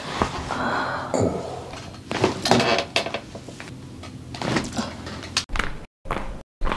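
Joints cracking and popping under chiropractic manipulation: several sharp clicks among rustling and shuffling of handling. Near the end the sound cuts out abruptly a few times.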